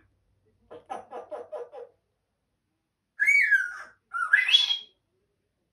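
African grey parrot giving a quick run of about seven short chattering notes, then two loud whistles, the first sliding down and the second sliding up.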